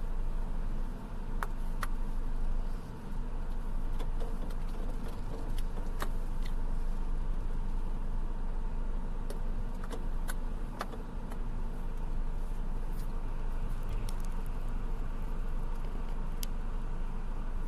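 Steady low rumble of a vehicle engine heard from inside its cab, with scattered sharp clicks and rattles.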